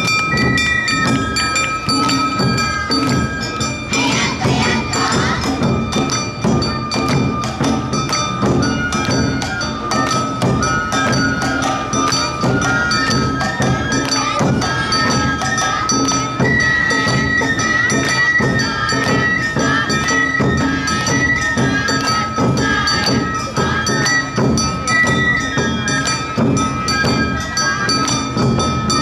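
Awa-odori festival band (narimono) playing steadily: a bamboo-flute melody over taiko drums and a ringing hand gong, in a driving even rhythm.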